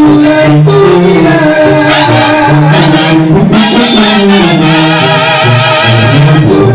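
Live Mexican banda music: clarinets and trumpets over a steady bass line, with voices singing along.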